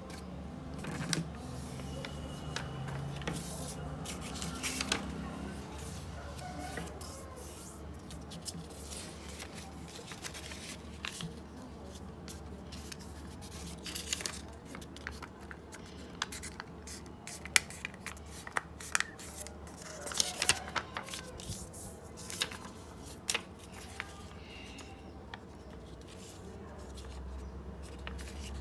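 A sheet of craft paper being folded and creased by hand: irregular crackles, rustles and sharp taps, loudest in a cluster around two-thirds of the way through, over a steady low hum.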